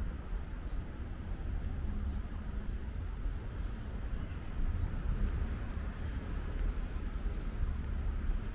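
Outdoor park ambience: a steady low rumble with a few faint, short bird chirps scattered through it.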